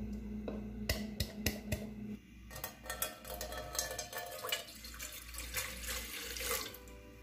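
A few sharp knocks of a pestle crushing ingredients in a mortar, then, from about two seconds in, a stream of water splashing as it fills a stainless steel pot.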